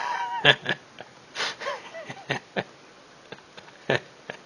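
A few sharp clicks and short breathy sniffs, with a faint voice in between.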